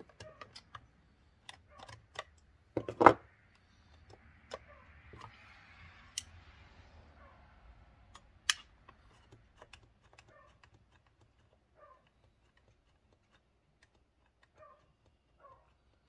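Small clicks and knocks of plastic and metal chainsaw parts being handled and fitted by hand, with a sharp knock about three seconds in, a soft rustle for a few seconds after, and then only faint scattered ticks.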